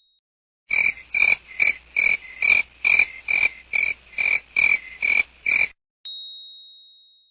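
Frog croaking sound effect: about a dozen short croaks in a steady rhythm, a little over two a second. Near the end comes a single bright ding that rings and fades away.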